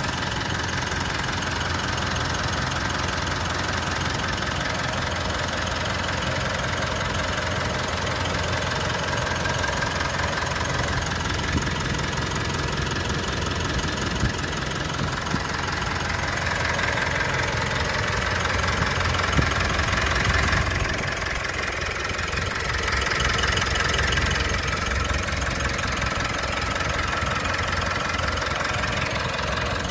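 Mitsubishi Pajero Sport's 4N15 four-cylinder turbo-diesel idling steadily with its usual diesel clatter, running on Bio Solar biodiesel blend. The owner calls it normal and smooth. It rises a little just past the middle, then settles again.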